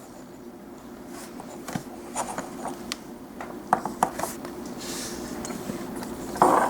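Plastic clicks and rubbing as the jointed wings of a Transformers Air Raid toy are moved back during transformation: a handful of short, scattered clicks over a steady low hum.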